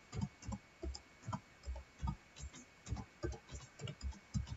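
Computer keyboard keystrokes as a short phrase is typed: faint, separate key taps, about three or four a second at an uneven pace.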